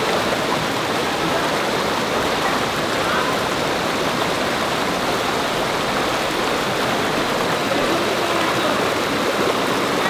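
Waterfall pouring, a loud, steady, even rush of falling water.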